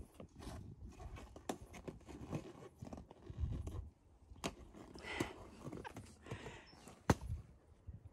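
A small puppy scuffling on gravel and mouthing a latex balloon, with irregular scrapes, rubs and taps. About seven seconds in comes one sharp, loud pop as the balloon bursts.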